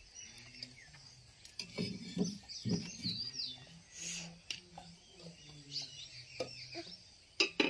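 Small birds chirping and calling in short gliding whistled notes, with a few soft low thumps and a sharp click near the end.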